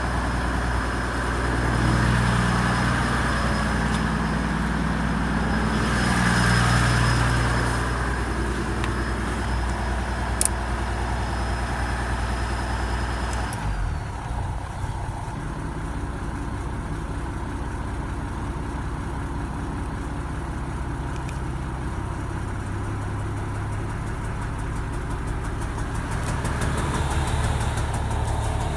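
Toyota Land Cruiser HDJ81's 4.2-litre turbodiesel straight-six idling with a rough idle. It swells in level twice in the first several seconds. A single sharp click comes about ten seconds in, and a steady high whine stops about halfway through.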